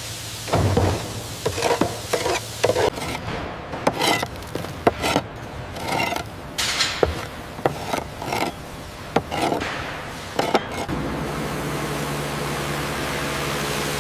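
Wooden mallet knocking a wooden deck plank into place: a run of irregular sharp knocks, then a steady low hum takes over near the end.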